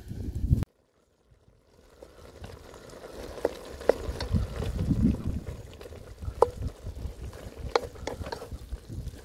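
Octopus and cabbage sizzling in a metal pot while a wooden spoon stirs them, with occasional sharp knocks of the spoon against the pot.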